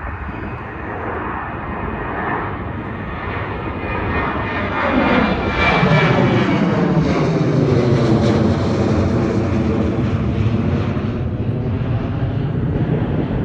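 Boeing 737-800 airliner departing at takeoff power, its CFM56 turbofan engines growing louder about four seconds in into a steady jet roar, with a whooshing phasing tone that sweeps down in pitch as it passes.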